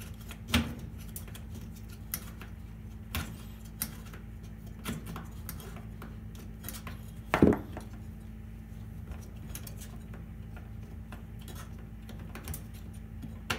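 Light metallic clicks and ticks as the copper ground strap on an electric range's terminal block is bent back and forth to snap it off. Two sharper clanks stand out, one about half a second in and one a little past the middle. A low steady hum runs underneath.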